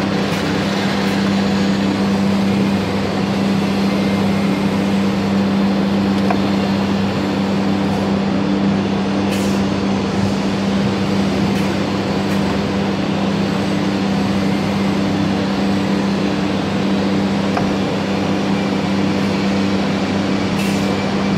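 An S4 automatic nesting ATC CNC router running steadily at work: a constant loud machine hum under a dense rushing noise.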